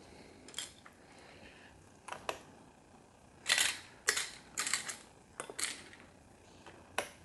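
Lego pieces being handled and pressed together: a string of irregular sharp plastic clicks and rattles, busiest and loudest from about three and a half to six seconds in.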